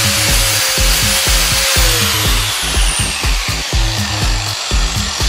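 Background music with a steady bass beat over an angle grinder grinding into an iPhone 6. About two seconds in, the grinder's whine drops in pitch.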